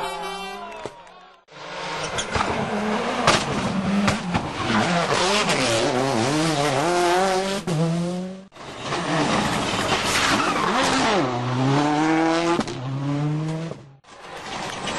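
Rally cars' turbocharged four-cylinder engines revving hard and dropping back through gear changes as they pass on a special stage. Separate passes are cut together, with the sound breaking off abruptly three times.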